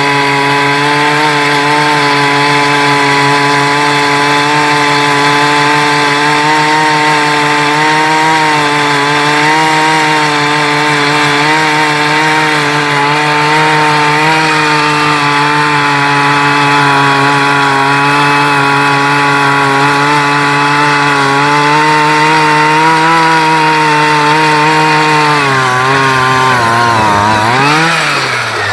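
Two-stroke engine of a Strike Master gas ice auger running at high, steady throttle while the 6-inch auger drills into the ground. Near the end the engine speed drops, wavers down and back up once, then falls off.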